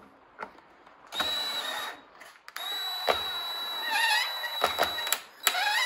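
Cordless drill driving a long screw through a foam manikin head, the motor whining in two main runs with a short stop between and a brief final burst. The screw apparently runs into another screw already in the form.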